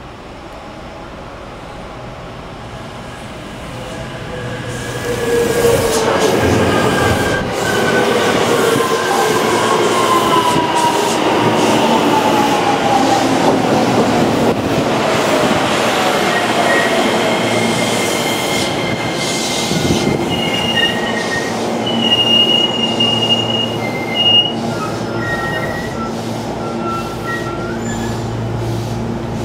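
JR West 321 series electric train arriving. It grows louder over the first several seconds as it approaches, then its inverter-driven traction motors whine, falling in pitch as it slows, with wheel clicks over the rail joints. In the last several seconds come broken high-pitched squeals as it brakes to a stop.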